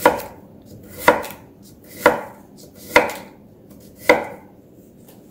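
Chef's knife slicing through a raw Korean radish on a wooden cutting board: five cuts about a second apart, each a short crunch ending in a sharp knock of the blade on the board.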